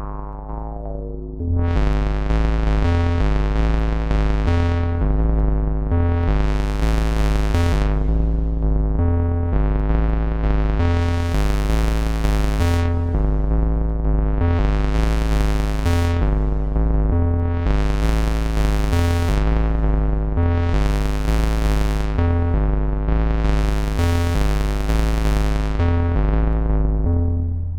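Moog Subharmonicon analog synthesizer playing a sequenced bass pattern: low notes step back and forth under a steady drone. The filter sweeps open and shut again and again, so the tone brightens and darkens in slow waves. The pattern comes in louder about a second and a half in.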